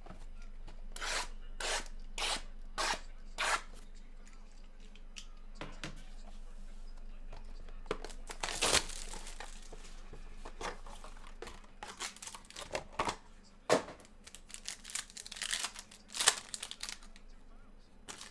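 Trading card packaging being torn open and crinkled, with a run of short sharp rips and crackles and one longer tear about nine seconds in.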